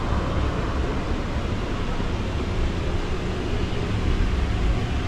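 Steady low rumble of outdoor city background noise, with no distinct events standing out.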